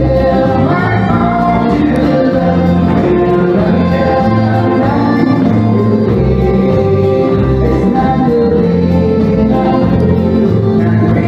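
Live country song: a male singer with electric guitar over a steady beat.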